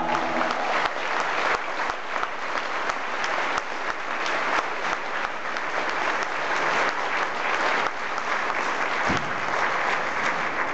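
Church congregation applauding steadily right after a sung gospel number ends.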